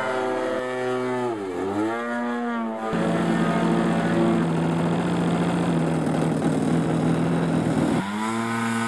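Engine of a radio-controlled Extra 300 aerobatic model plane running. Its pitch dips and climbs back about a second and a half in, it runs steadily and rougher in the middle, and its pitch rises near the end as the throttle opens.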